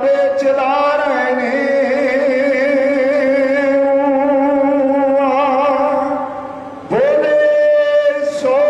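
A man singing a Punjabi devotional poem in long held notes that waver in pitch. He breaks off briefly for a breath about six and a half seconds in, then starts the next note.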